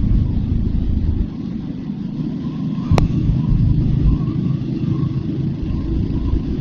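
Royal Enfield Hunter 350's single-cylinder 349 cc engine running as the bike rides along, heard from the rider's position, with one sharp click about three seconds in.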